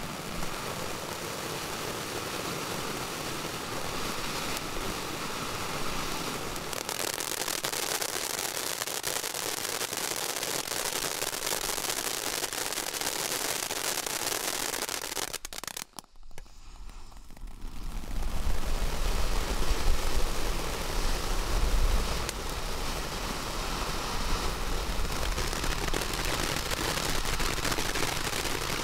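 Ground fountain firework spraying sparks with a steady hiss and rapid crackling pops. The sound cuts out for a moment a little past halfway, then comes back louder and fuller for a few seconds.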